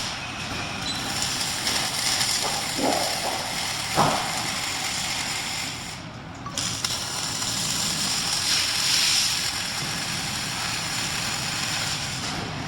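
Steady hissing noise of a robotic MIG welding arc, dipping briefly about halfway through.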